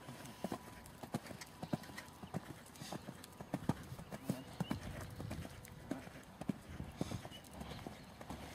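Horse cantering on a sand arena: its hoofbeats land in a steady rolling rhythm, about three a second.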